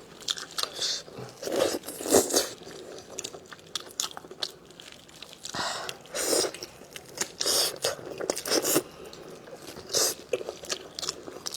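Close-up eating sounds: biting and chewing braised lamb chops, with irregular wet crunches of meat and gristle, the loudest about 2, 6, 8 and 10 seconds in.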